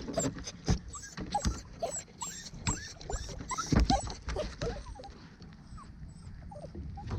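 A dog whining and whimpering over and over in short, high cries that rise and fall, the anxious whining of a dog stressed by riding in a kayak. Sharp knocks and clicks are scattered among the cries.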